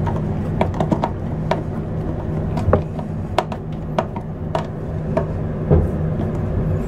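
Sharp, irregular clicks and small knocks as a 6-in-1 screwdriver, used as a nut driver, turns screws out of a Dometic toilet's plastic valve housing. A steady low hum runs underneath.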